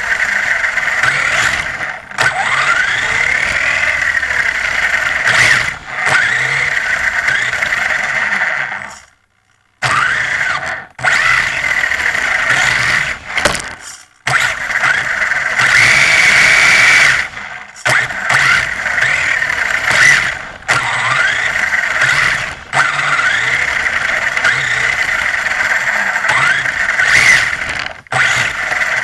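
Brushless electric motor and gear drivetrain of a 1/16-scale four-wheel-drive mini rally RC car, heard from on board: a high whine that rises and falls in pitch with the throttle. It drops out sharply several times, going nearly silent for about a second around nine seconds in.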